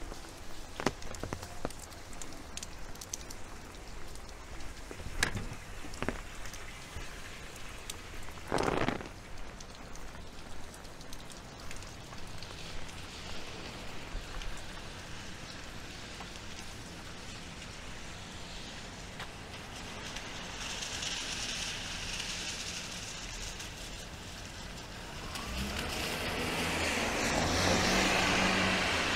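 Steady rain falling on a city street, with scattered sharp drops and a few louder knocks in the first several seconds. Near the end a vehicle comes up on the wet road, its tyre hiss and engine swelling to the loudest point of the stretch.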